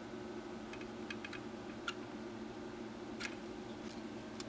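Soldering iron and desoldering braid at work on a circuit board's solder pads: a few scattered sharp ticks, the strongest a little past three seconds in, over a steady low hum.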